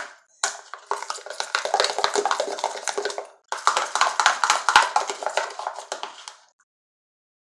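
Homemade shampoo slime being squeezed and stretched in the hands, with dense sticky clicking and crackling in two spells of about three seconds each. It stops about six and a half seconds in.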